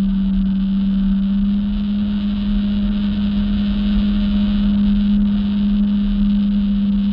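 Jet ski engine running at a steady speed: a constant drone with a steady rushing noise underneath.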